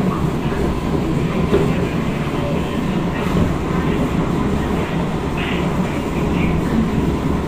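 SMRT C151 metro train running at speed, heard from inside the passenger car: a steady rumble of wheels on rails and running gear.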